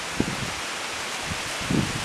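Steady outdoor hiss of wind and rustling, with a few soft low thuds.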